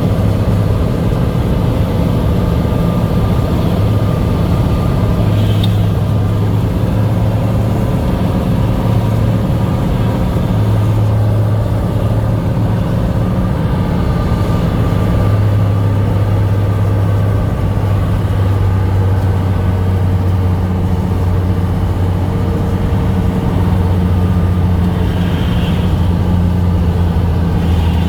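Cessna 182's piston engine and propeller droning steadily.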